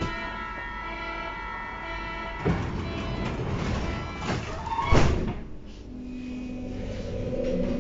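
Berlin U-Bahn train doors closing: a steady warning tone, a knock, then a short squeal and a loud thump as the sliding door shuts about five seconds in. The traction motors then start a low rising hum as the train begins to pull away.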